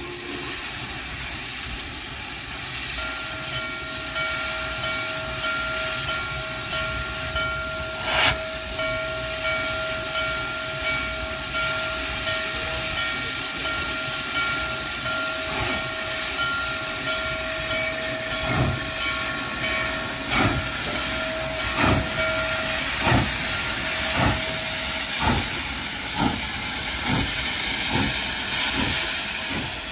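Norfolk & Western 611, a 4-8-4 steam locomotive, hissing steam, with a steady whining tone held over it for most of the time. From a little past the middle, exhaust chuffs start, slow at first and quickening steadily: the locomotive is getting under way.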